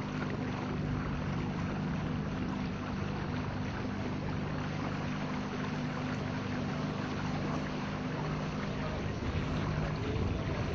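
A small boat's motor running steadily as the boat cruises along a channel, with the hiss of water and wind over it.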